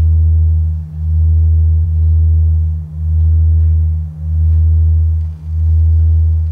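Sine wave oscillators holding a deep drone of low pure tones with a steadier hum a little higher above it. The low tones fade out briefly and swell back about every one to two seconds.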